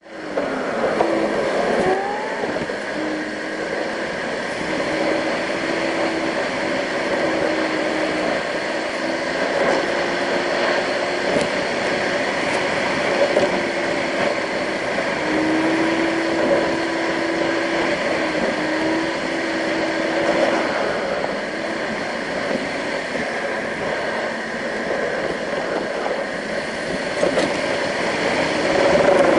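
A car being driven, heard from inside the cabin: steady engine and tyre noise, with the engine note stepping up and down as the throttle changes.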